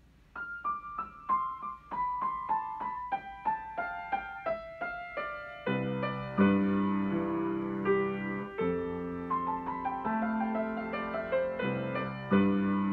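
Grand piano played solo: a falling line of single treble notes at first, then from about six seconds in, low bass notes and chords join beneath the melody.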